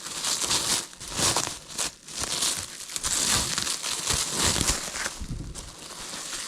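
Packaging crinkling and tearing in irregular bursts as a pair of forge gloves is unwrapped by hand.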